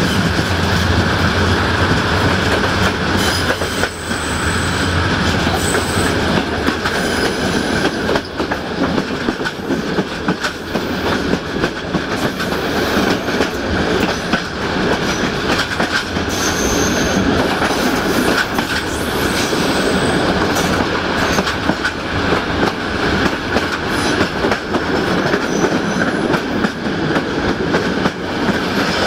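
Passenger train running along the line, heard from a coach window: a steady rumble with wheels clacking over rail joints, and a few brief high-pitched wheel squeals.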